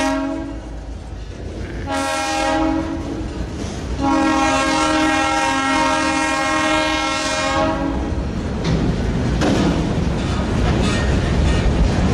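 Portland & Western freight locomotive's multi-chime air horn sounding ahead of the train: a blast ending just after the start, a short blast about two seconds in, then a long blast lasting about four seconds, in the long-long-short-long pattern of a grade-crossing warning. Under it and after it, freight cars roll close by, wheels clacking over the rail joints.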